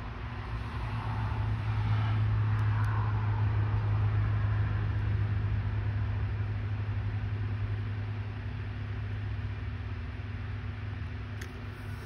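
A motor vehicle passing: a low engine and road hum swells over a couple of seconds, holds, then slowly fades away.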